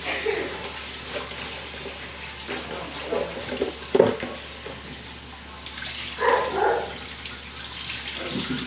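Kitchen tap running into a stainless steel sink while sweet potato leaves are swished and rinsed in a plastic basin, water splashing irregularly. The basin knocks sharply against the sink about four seconds in, and there is a brief louder sound a little after six seconds.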